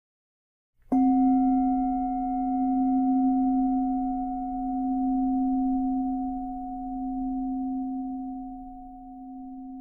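A meditation bell struck once, about a second in, rings a low tone with a few higher overtones. It dies away slowly, its loudness swelling and fading as it rings. The strike marks a one-minute interval in the meditation.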